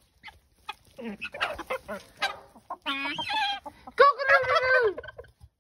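Mixed backyard poultry calling: a run of clucks and short pitched calls, then one longer call of about a second near the end that drops in pitch as it finishes.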